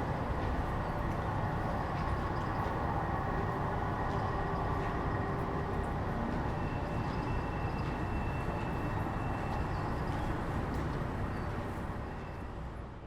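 Train running on rails: a steady rumble, with a faint high tone held through the middle, fading out near the end.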